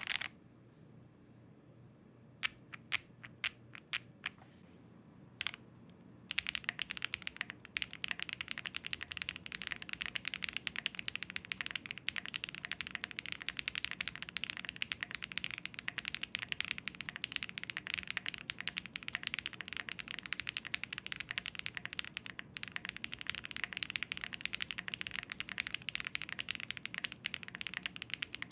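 Meletrix Zoom65 V3 mechanical keyboard being typed on for a sound test: a few separate keystrokes, then from about six seconds in continuous fast typing, the keyboard built in its split O-ring mount.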